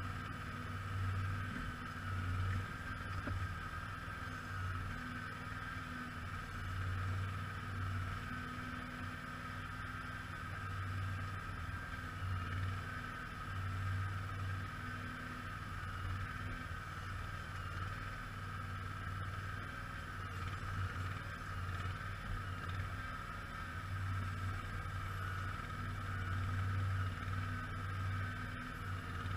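Simplicity Legacy XL garden tractor engine running steadily, its low hum swelling and easing every second or two.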